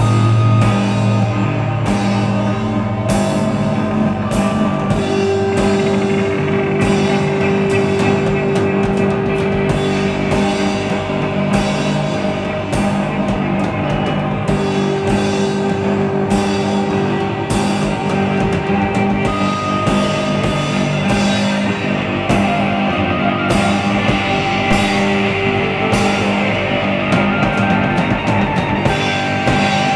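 Live rock band playing: electric guitars and a drum kit keeping a steady beat of about two hits a second, over long held notes.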